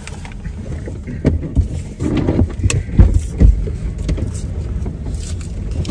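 Truck engine idling, a steady low rumble inside the cab, with paper food bags and wrappers rustling and a few dull knocks as the food is unpacked, the loudest knock about three seconds in.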